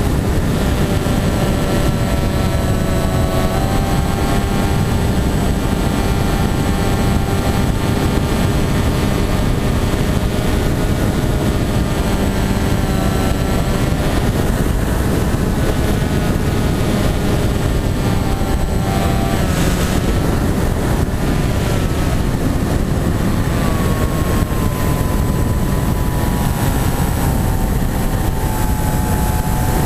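Motor and propeller of a flying-wing model plane running under power, heard from an onboard camera over heavy wind rush. Its whine steps up in pitch a few seconds in, dips briefly and comes back about two-thirds through, then sinks slowly over the last few seconds as the throttle eases.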